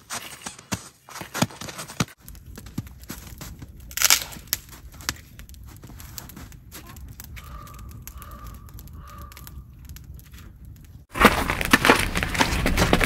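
Wood campfire crackling as it is tended with a stick: scattered clicks and knocks, with one sharper snap about four seconds in. Near the end a sudden louder rushing noise takes over.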